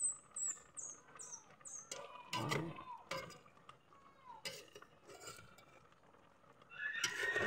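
Metal ladle stirring vegetables in a cast-iron pot, with scattered clinks and scrapes against the pot. A run of short, high falling chirps in the first two seconds.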